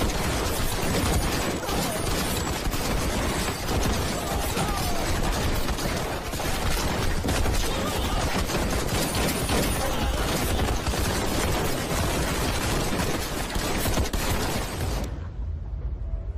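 Sustained automatic gunfire in a dense, unbroken barrage, stopping abruptly about fifteen seconds in.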